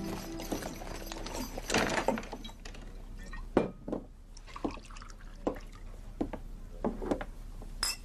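A series of irregular light knocks and clinks, with a short pouring or splashing rush about two seconds in.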